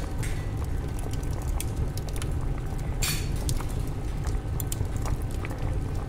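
Old-bakery kitchen ambience: a steady low rumble with scattered crackles and clicks, the kind of bed made from boiling water and an oven fire, and a brief hiss about three seconds in.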